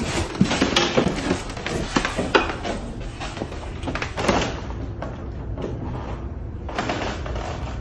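Washington iron hand press being worked by hand: a quick run of sharp knocks and clunks from its moving parts in the first couple of seconds, then more clunks about four seconds in and again near the end.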